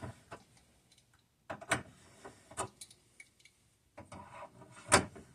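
Scattered light clicks and taps of hard parts being handled, with a stretch of rubbing and one sharper knock near the end.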